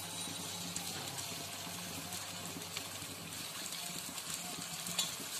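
Vegetable batter balls deep-frying in hot oil in a kadai: a steady sizzle and crackle of bubbling oil, with a few faint clicks.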